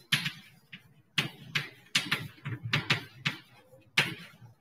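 Chalk tapping and scratching on a blackboard as words are written: a quick, irregular series of sharp taps and short strokes.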